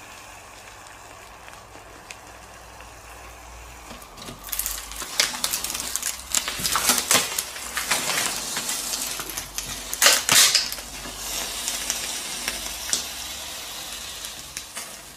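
Molten metal hitting a laptop, sizzling and crackling with sharp pops. It starts about four seconds in and comes loudest in a few surges before dying down.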